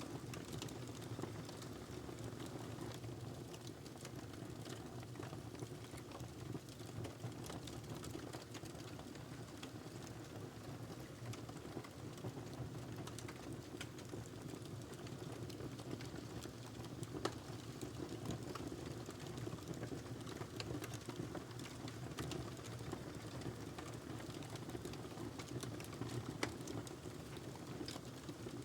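Wood fire crackling in a fireplace: a steady low rush of burning, with frequent small snaps and pops and a couple of louder pops.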